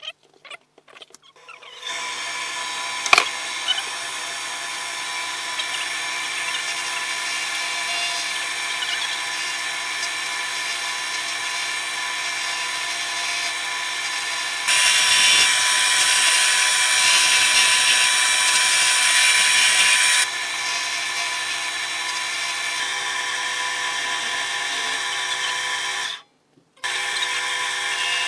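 Wood lathe starting up and running with a steady motor whine, a bowl gouge cutting the spinning square oak-and-walnut mallet blank to round it. The cutting gets much louder, a rushing hiss, from about 15 to 20 seconds in.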